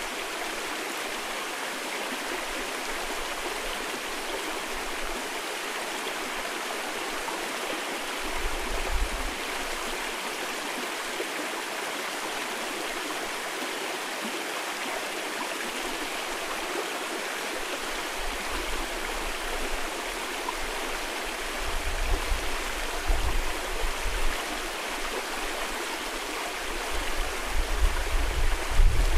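Mountain valley stream rushing steadily over rocks. Low wind rumble buffets the microphone briefly about eight seconds in and more often through the last ten seconds.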